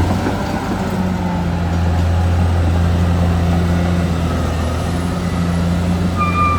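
Caterpillar D6R XL bulldozer's diesel engine running steadily with a deep drone. A steady high tone comes in near the end.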